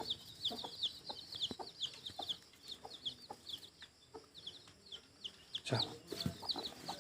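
Newly hatched local-breed chicks peeping continuously, with rapid, high-pitched, falling chirps several times a second. A few lower clucks come in around six seconds in.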